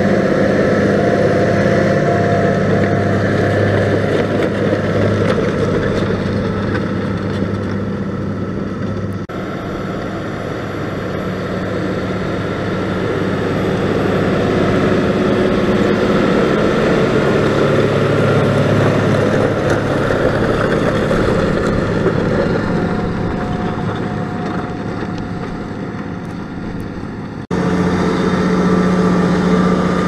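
A New Holland T7.245 tractor's six-cylinder diesel engine runs steadily under load while pulling a five-furrow plough through the soil. It is a deep, even drone that grows louder and quieter as the tractor moves past, and the sound jumps abruptly twice.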